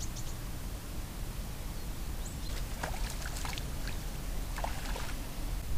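A hooked young bream splashing at the water's surface as it is drawn in toward the landing net, a few small splashes over the second half.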